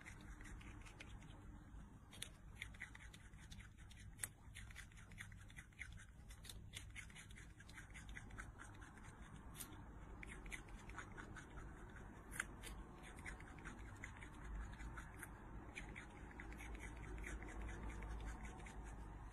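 A small pet rodent nibbling a piece of food held in its paws: faint, quick, irregular crisp clicks of gnawing and crunching.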